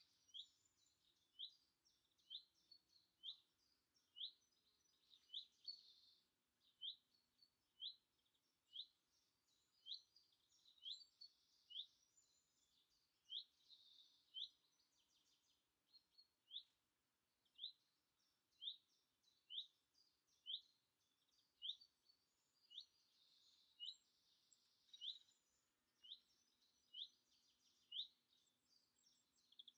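A songbird calls a single short rising whistle over and over, evenly about once a second. Fainter chirps of other birds sound behind it.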